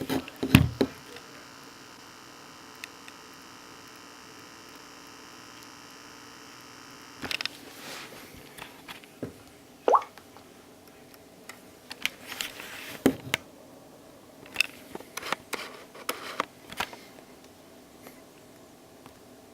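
Samsung Galaxy TabPro 8.4 tablet with a faint, steady multi-tone buzz that cuts off abruptly about seven seconds in, followed by scattered clicks, taps and a few short rising chirp-like pops. This is the sound fault the owner found on several units of this model.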